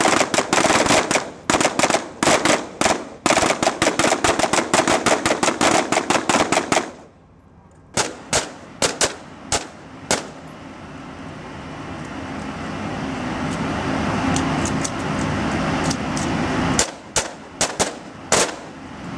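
Several rifles firing on a live-fire range: rapid, overlapping shots, many a second, for about seven seconds, then a brief pause and scattered single shots and pairs. In the lull that follows a steady rushing noise slowly grows, and another string of shots comes near the end.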